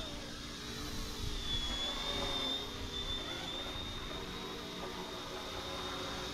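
Electric RC helicopter (RTR Hobby 206 JetRanger) in flight, its motor and rotors giving a steady high whine that dips slightly in pitch about a second and a half in, with wind rumbling on the microphone.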